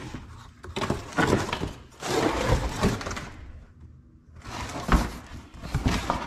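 Empty cardboard parts box being handled, its flaps folded and flexed, rustling and scraping in three bouts with a short pause in the middle.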